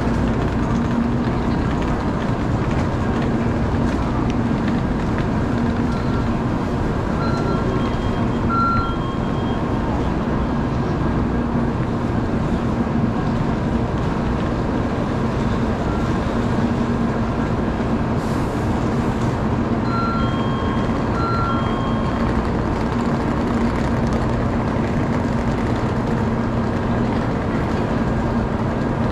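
Steady hum and rumble of a Shinkansen station platform with trains standing at it. A short electronic chime of a few notes sounds twice, about seven seconds in and again about twenty seconds in.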